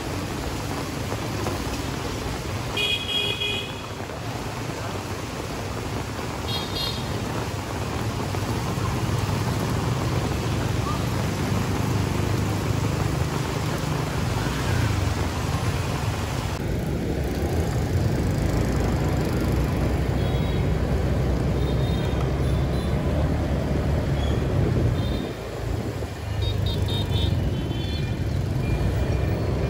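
Road traffic with vehicle engines running and several short horn toots: a couple of beeps about three seconds in and again about seven seconds in, then a cluster of toots near the end.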